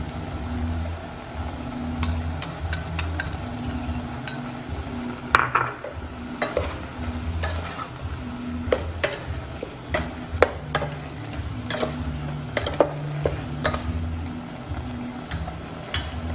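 Metal ladle stirring and tossing beef, lemongrass and chilies in a metal cooking pot, working the seasoning into the meat, with frequent sharp clanks and scrapes of the ladle against the pot, most of them from about five seconds in.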